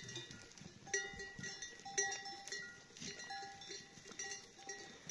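Bells on a herd of goats clanking at uneven intervals as the animals move about, each stroke ringing briefly.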